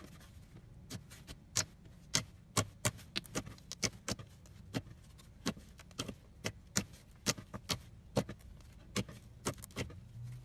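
Slime being squeezed and folded by hand, giving sharp, irregular clicking pops, about two or three a second.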